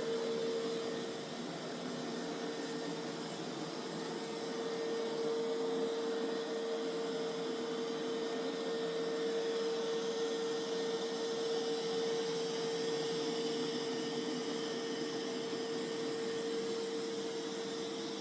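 Mova Z60 robot vacuum-mop running on a cleaning pass: a steady motor hum with a constant tone over a hiss.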